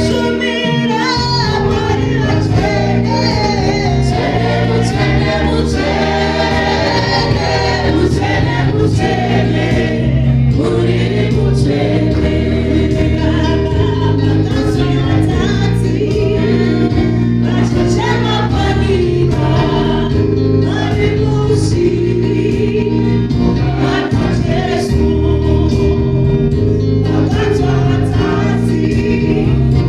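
Gospel worship song sung in Shona by a worship team on microphones, a lead singer with backing voices, over instrumental backing with a steady bass line.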